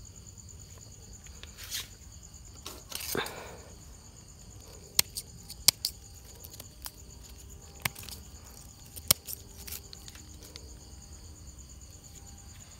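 Steady high-pitched chirring of night insects such as crickets. A brief rustle comes about three seconds in, and several sharp clicks follow in the middle.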